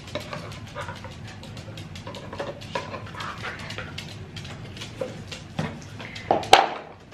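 Dog noises: a steady run of quick soft clicks and breathing sounds, with a few short faint pitched notes. A sharp knock about six and a half seconds in is the loudest sound.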